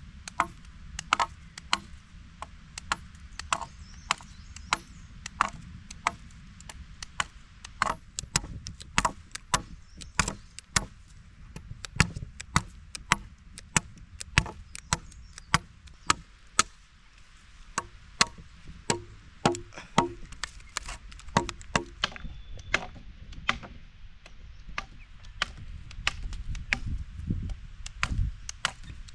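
Wood being chopped with a blade: a quick, irregular run of sharp chopping strikes, about two a second.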